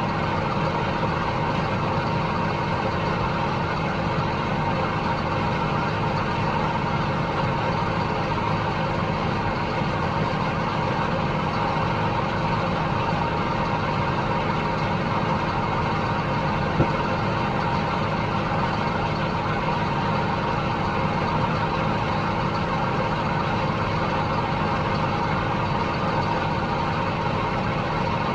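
Heavy farm machinery engine running steadily, an even drone with a few constant whining tones. A single sharp click about two-thirds of the way through.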